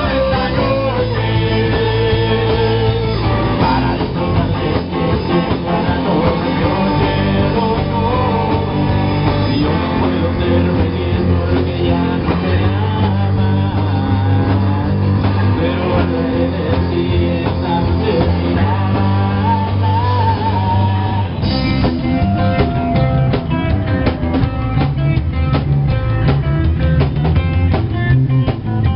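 Live rock band playing: electric guitar, bass and drum kit with voices singing. About two-thirds through, the drums come in harder with a steady driving beat.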